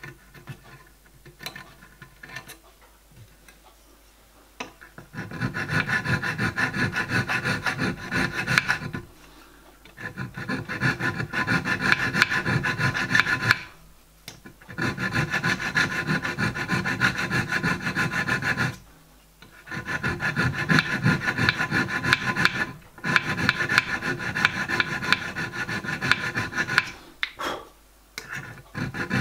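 Hand file rasping over a small metal part of a model locomotive frame held in a vise. A few light handling clicks come first. Then about five runs of quick back-and-forth file strokes follow, each lasting several seconds, with short pauses between them.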